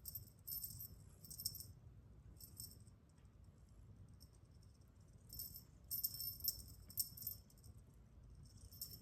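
A small jingle-bell toy shaken in short bursts: once about a second in, briefly about two and a half seconds in, a longer run from about five to seven and a half seconds, and once near the end.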